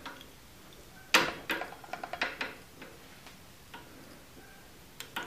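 Light metallic clicks and ticks of a bobbin and bobbin case being handled and fitted into the shuttle hook of a Cowboy CB3200 walking-foot sewing machine. There is one sharper click about a second in, then a scatter of smaller ticks.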